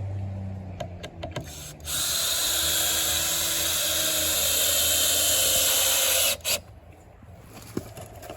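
Power drill running steadily for about four seconds, then stopping suddenly, followed by a brief second squeeze of the trigger.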